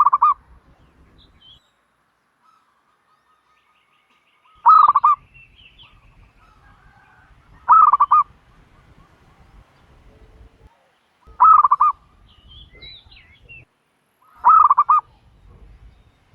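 Turtle dove calling: five short bursts of rapid cooing notes, each a quick run of three or four pulses, spaced a few seconds apart. Faint chirps of other small birds come between the calls.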